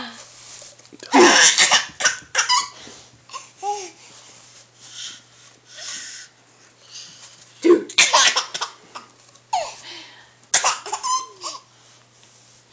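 A baby laughing in three loud bouts, about a second in, near the middle and near the end, with softer breathy sounds between them.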